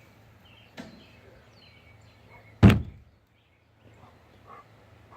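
A single loud thump about two and a half seconds in, after a fainter knock about a second in, against a low steady background.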